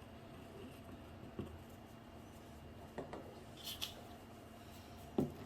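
Faint handling noises while adhesive is applied to a tank patch: a few light clicks and taps and one short hiss about two-thirds of the way through, over quiet room tone.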